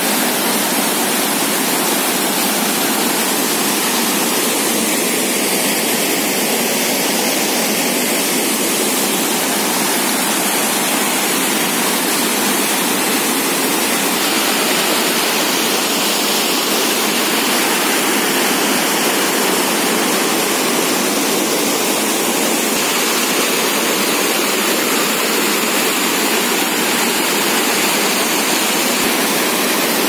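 Wide, low waterfall of muddy water spilling over a ledge into churning white water: a steady, unbroken rush of falling water.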